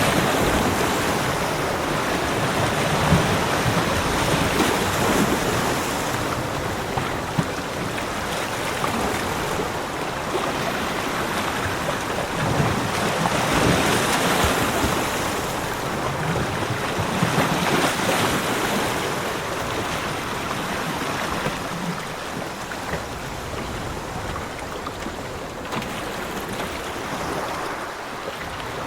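Ocean surf washing onto a beach: a steady hiss of water that swells with each breaking wave every several seconds.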